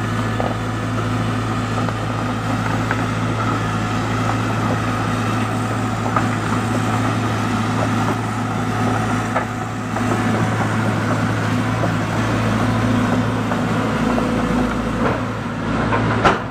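Diesel engine of a Caterpillar tracked excavator running steadily, a constant low hum with a few faint clicks and knocks over it. A short sharp knock comes just before the end.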